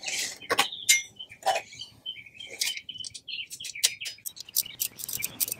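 Songbirds chirping, mixed with sharp metallic clicks and clinks as bolts are started on a driveshaft yoke by hand. Near the end comes a quick run of clicks.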